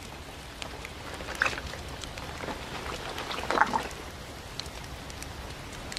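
Quiet outdoor ambience: a steady soft hiss with scattered light ticks and crackles, and a couple of brief soft sounds about a second and a half and three and a half seconds in.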